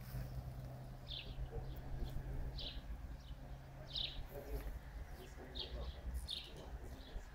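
A bird chirping outdoors: short high calls repeated about once a second, over a low rumble.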